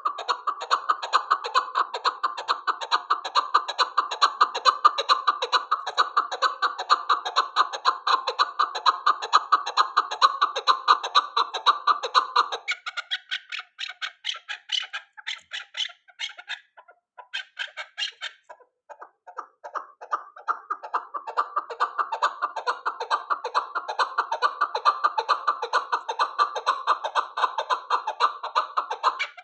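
Male chukar partridge calling: long runs of rapid, repeated chuck notes, with a thinner, higher chatter for several seconds in the middle before the full calling resumes.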